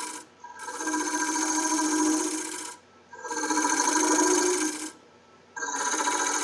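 Gouge cutting a thin-walled segmented wooden lampshade turning on a lathe. The thin wall sings with a steady ringing tone while the tool bears on it, in three cuts of about two seconds each with brief breaks between them.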